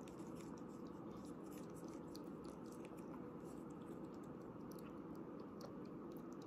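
Ferret licking and lapping liquid food from a syringe tip: faint, irregular small wet clicks of tongue and mouth, over a steady low background hum.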